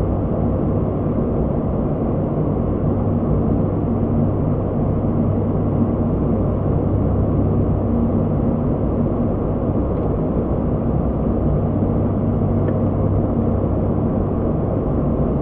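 Steady flight-deck drone of an ATR 72-600 on final approach, from its two Pratt & Whitney PW127M turboprops and propellers, with a constant low hum running under the noise.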